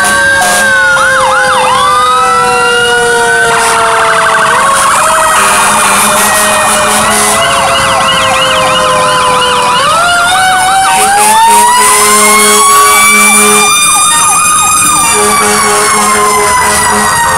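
Fire truck sirens sounding together as the apparatus pass: a siren winds slowly up and down while others warble rapidly. Short low-pitched horn blasts come in the second half.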